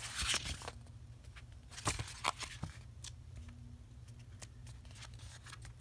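Pages of a softcover booklet being turned and handled: a couple of brief paper swishes, near the start and about two seconds in, with soft rustles and small clicks between them over a faint low hum.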